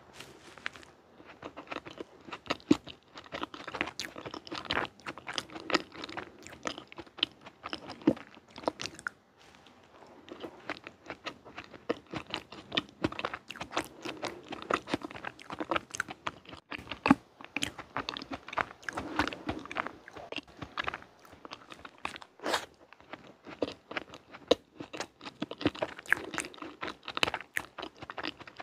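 Close-miked chewing of a layered chocolate sandwich dessert, soft cake layers and chocolate cream: a bite at the start, then steady chewing full of crackly, crunchy clicks and wet mouth sounds, with a short lull about nine seconds in.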